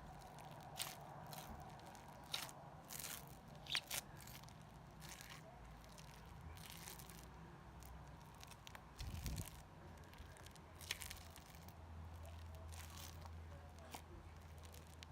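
Homemade slime being squeezed and pulled by hand, giving off faint, irregular crunchy crackles and clicks, thickest in the first few seconds. The crunch comes from glue in the slime that makes it break apart from inside. A single dull thump comes about nine seconds in.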